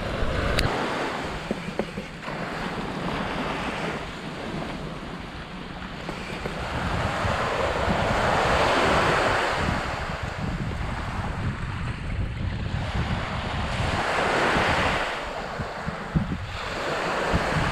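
Ocean surf washing in, swelling twice (around eight to ten seconds in, and again near fifteen seconds), with wind rumbling on the microphone.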